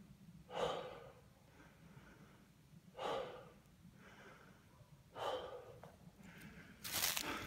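A man breathing hard through an open mouth, winded after a steep uphill climb, with a heavy exhale about every two seconds and quieter breaths between. Near the end louder crunching of dry leaf litter underfoot takes over.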